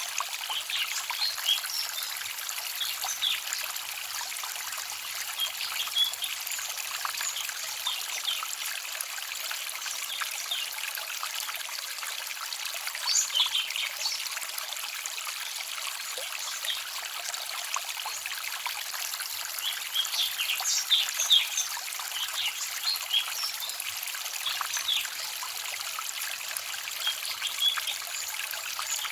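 Small forest stream trickling and babbling over stones, a steady rush of water dotted with quick splashes and plinks that bunch up now and then.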